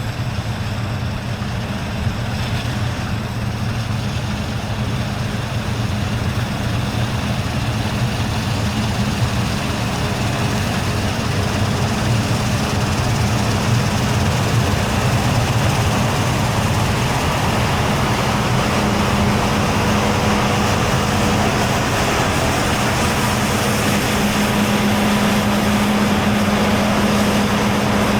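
Large diesel harvest machinery running steadily: a low engine drone with a constant hum, slowly getting louder.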